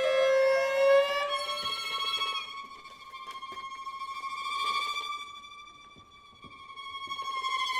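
Instrumental music from a contemporary score: a held note glides slowly upward, then gives way to a single high note that is sustained, swelling and fading twice.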